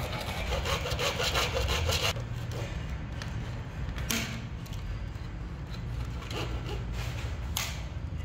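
A hand-held hacksaw blade sawing through PVC electrical conduit stubs, in quick back-and-forth strokes that are loudest in the first two seconds, then softer. A sharp click about four seconds in and another near the end.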